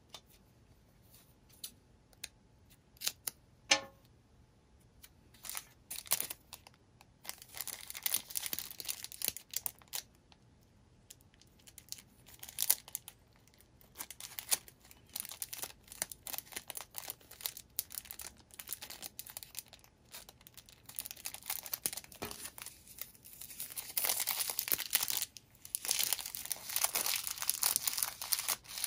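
Packaging handled by hand: crinkling, rustling and tearing between scattered clicks and taps. There is a louder spell of crinkling about a quarter of the way in and another near the end.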